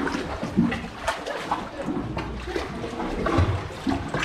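Water splashing and lapping around a kayak, with irregular splashes from paddling.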